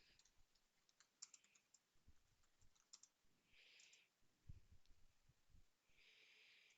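Near silence with faint, scattered clicks from computer keyboard and mouse use, and two short stretches of soft hiss.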